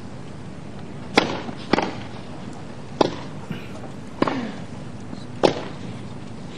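Tennis rackets striking the ball during a rally: five sharp hits, the first two about half a second apart and the rest about a second and a quarter apart, over a faint crowd murmur.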